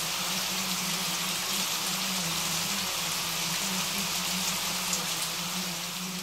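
Steady rain falling: an even hiss with faint scattered drop ticks, over a low wavering hum.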